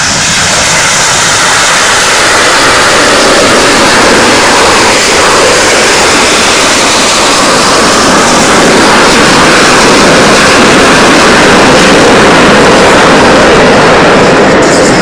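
Aermacchi MB-339 jet trainers taking off, their Rolls-Royce Viper turbojets at full power. A loud, steady jet noise that swells over the first two seconds and then holds.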